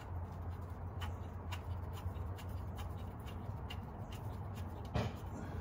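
Light clicks and taps of small metal transmission parts being handled, over a steady low hum, with one louder knock about five seconds in.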